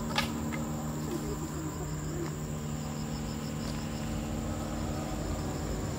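Insects calling in forest: a steady high-pitched drone with a faint pulsing chirp beneath it, over a low steady hum. There is a single sharp click just after the start.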